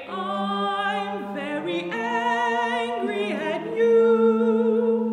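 Soprano voice singing long held notes with vibrato, together with a flute; the held pitches change every second or so.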